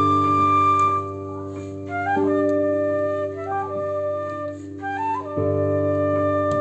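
Flute and piano playing a classical duet. The flute holds a long note, then plays short rising runs three times over sustained piano chords, with new chords struck about two seconds and five seconds in.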